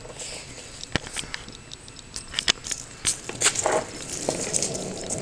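Scattered clicks and knocks from the handheld camera and board being handled. About three and a half seconds in, a steady rolling rumble of longboard wheels on a concrete driveway sets in.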